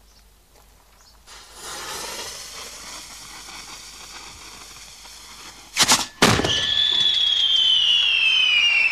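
A firework mortar's lit fuse fizzing for about four seconds, then the gunpowder charge going off with two sharp bangs close together as it fires the shell out of the tube, followed by a long whistle falling slowly in pitch.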